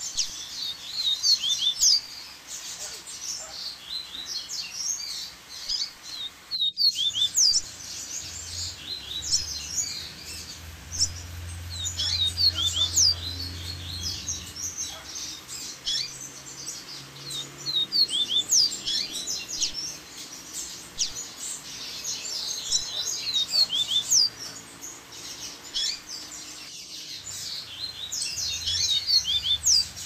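Several double-collared seedeaters (coleiros) chattering and singing together: a dense, overlapping mix of quick high chirps and short song phrases, over the steady rush of a waterfall.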